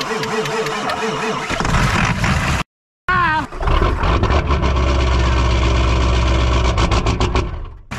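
Cold start of a Ford 7.3 V8 diesel on ether: the starter cranks it over with an even rhythm, and the engine catches about a second and a half in. After a break, the diesel runs with a strong, steady low rumble at the exhaust, fading just before the end.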